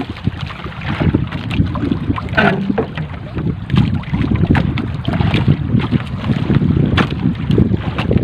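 Wind buffeting the microphone as an uneven low rumble, with water lapping at the hull of an outrigger fishing boat. Scattered short knocks and rustles come from a fishing net being hauled in hand over hand across the gunwale.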